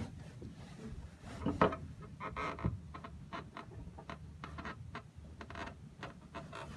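Light clicks, knocks and rubbing from hand work on an outboard motor's steering cable fitting, with a louder knock about a second and a half in and a run of small clicks in the second half.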